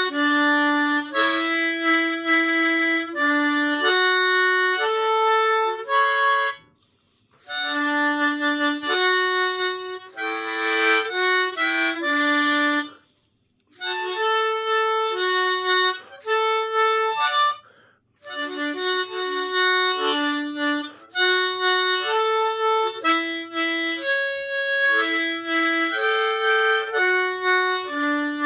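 Suzuki Manji 10-hole diatonic harmonica played solo in short melodic phrases of single notes and chords, with brief breaths of silence about 7, 13 and 18 seconds in.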